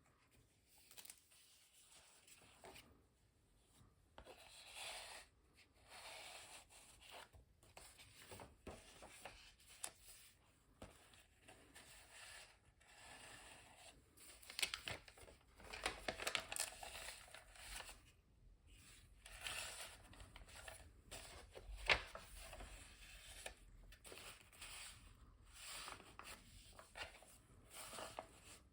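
Paper pages of a handmade junk journal being handled and turned: irregular soft rustles and rubs, with one sharper tap past the middle.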